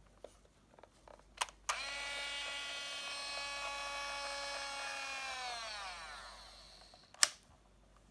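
Olympus Trip AF 60 film-transport motor running: after a small click it whirs steadily for about four seconds, then slows, falling in pitch as it winds down. A sharp click about two seconds later is the loudest sound.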